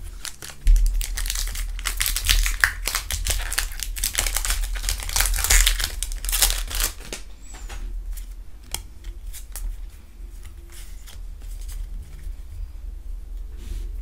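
Foil wrapper of a Pokémon trading card booster pack crinkling and tearing as it is opened, dense for about the first seven seconds. Quieter clicks and slides of the cards being handled follow.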